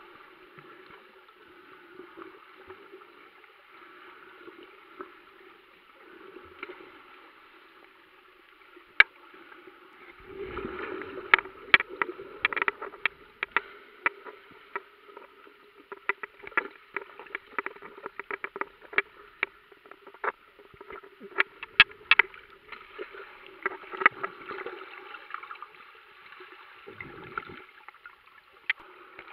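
Muffled underwater sound picked up by a submerged camera: a steady low hum with many sharp clicks and knocks. The clicks grow busier and louder from about ten seconds in, with a brief low rumble.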